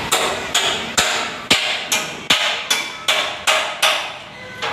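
Hammer blows on metal: a steady run of about ten strikes, two to three a second, each ringing briefly, stopping shortly before the end.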